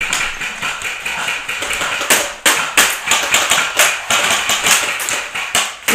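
Airsoft gunfire: a dense, irregular run of sharp clicks and pops, with several louder cracks between about two and four seconds in.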